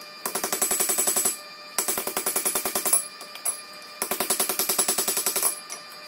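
Hand hammer striking red-hot steel on an anvil in three quick runs of rapid, ringing blows, with short pauses between them.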